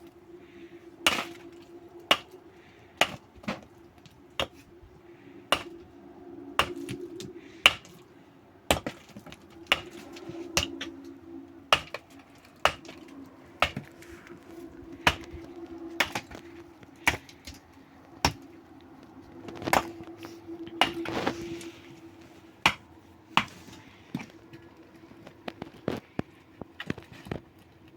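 Repeated sharp strikes of a hand tool, one or two a second at an uneven pace, over a faint steady hum.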